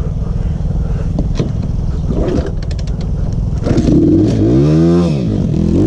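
Pitbike's single-cylinder four-stroke engine idling, then revving sharply up and straight back down about four seconds in as the throttle is opened hard.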